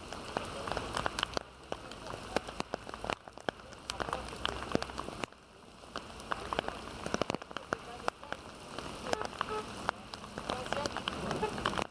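Heavy rain pouring down, a steady wash of noise filled with dense, sharp patter of drops striking a surface close by, easing briefly about five seconds in.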